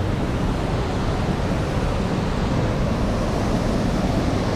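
Waterfall rushing steadily, an even unbroken noise heaviest in the low end.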